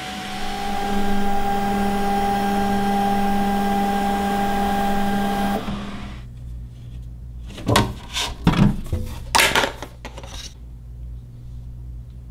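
Creality K1 3D printer running a print: a steady whir of its fans and motors with a steady hum, cutting off abruptly after about five and a half seconds. Then a few sharp clicks and knocks as the printer's glass front is handled and the finished print taken out.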